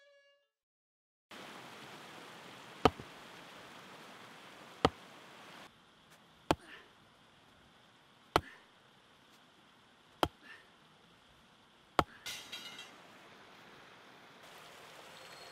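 A long-handled hammer strikes the top of a wooden fence post six times, sharp knocks about two seconds apart, as the post is driven into the ground.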